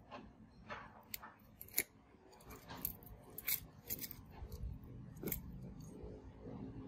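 Light, irregular clicks and taps from the battered midframe of a Samsung Galaxy Note 9 being handled and turned over by hand, with a soft rub of fingers between them.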